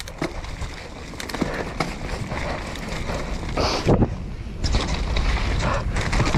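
Mountain bike riding down a dirt trail: tyres rolling and the bike rattling over the ground, with wind buffeting the microphone. Frequent small knocks, and a louder knock about four seconds in.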